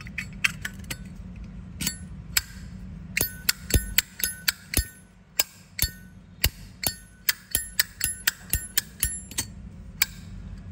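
A 2014 Zippo lighter's hinged lid snapped open and shut over and over, about two dozen sharp clicks, each with a short bright bell-like ring.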